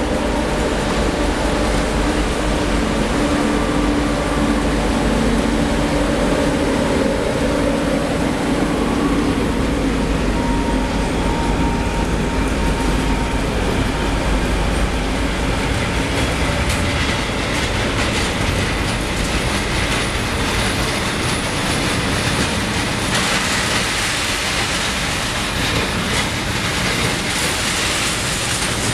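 Freight train passing close by: an M62 diesel locomotive's two-stroke V12 engine runs in the first half, then the tank wagons roll past with wheels clattering over rail joints and some wheel squeal in the second half.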